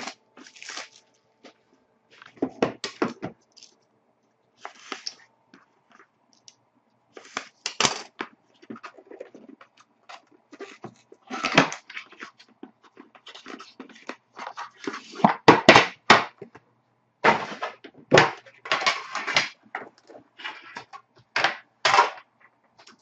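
Packaging being unwrapped and handled while a sealed box of trading cards is opened: irregular rustling, crinkling and tearing, with a few knocks. It is busiest about two thirds of the way through.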